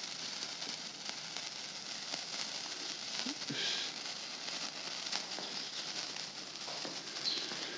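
A small lit firework burning with a steady hiss and faint crackling.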